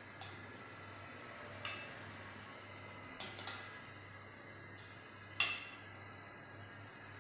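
A spoon knocking against a plastic mixing bowl as fruit salad is stirred: a few separate light clinks and taps, the sharpest about five and a half seconds in, over a low steady hum.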